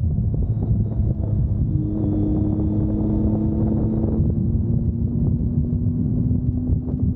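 A vehicle engine running at a steady hum that slowly rises in pitch from about two seconds in, under heavy wind noise on the microphone.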